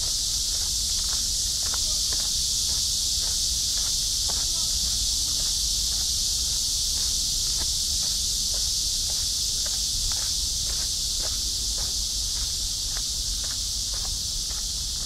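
A steady, loud, high-pitched insect chorus droning without a break. Beneath it, a walker's footsteps fall on the path at about two steps a second.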